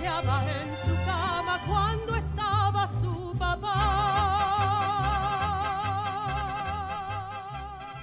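Mariachi opera music: singing with wide vibrato over a mariachi band and a pulsing bass line, closing on a long held note with heavy vibrato that fades away near the end.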